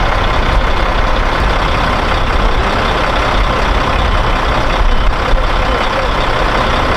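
Steady rumble of a heavy military truck's diesel engine running, with a faint steady whine.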